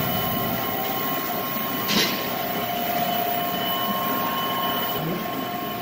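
PASSON inline high-shear disperser running while it processes black CNT conductive slurry, a steady machine noise with several steady whine tones. There is one short hiss about two seconds in.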